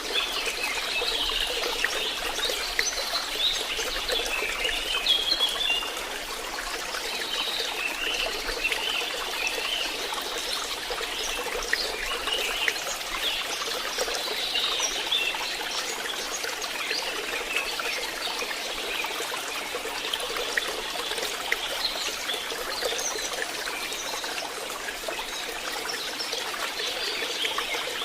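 Water trickling and splashing, with many small birds chirping over it, most busily in the first half.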